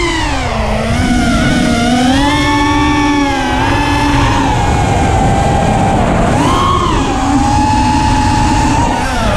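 FPV racing quadcopter's brushless motors and propellers whining, the pitch swooping down and back up several times as the throttle changes, over a steady rushing noise.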